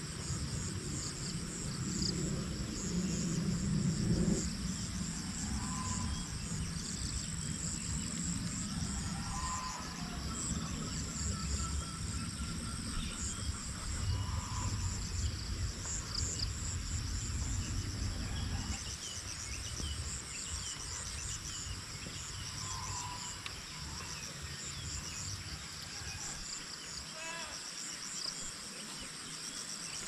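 A steady outdoor chorus of insects trilling high and pulsing, with a few short bird calls. A low rumble sits under it and stops about two-thirds of the way through.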